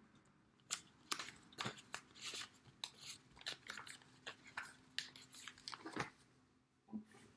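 Paper pages of a spiral-bound sheet-music book being flipped: a quick run of crisp rustles and flaps for about five seconds, then one more brief rustle near the end.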